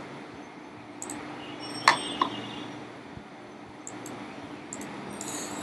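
Scattered short clicks of a computer mouse as dropdown menus are opened and items chosen, over a low steady hum. One louder click about two seconds in has a brief ringing clink.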